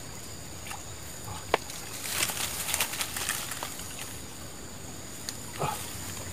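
Small splashes and scrapes of hands working in shallow river water at the bank while a bamboo set-line rod is set: a sharp click about one and a half seconds in, a run of short splashes and rustles a little after, and another near the end.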